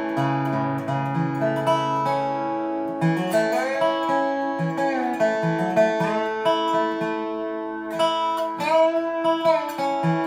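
Dobro resonator guitar played with a capo clamped on: plucked melody notes over ringing open strings, with the notes sliding up and down in pitch between them.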